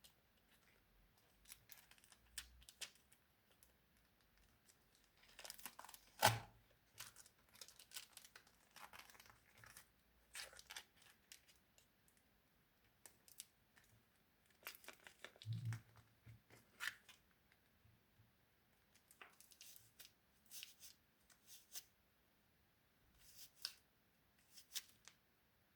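Quiet handling of craft materials: scattered small crinkles, rustles and clicks, with a sharper knock about six seconds in and a dull thump a little past the middle.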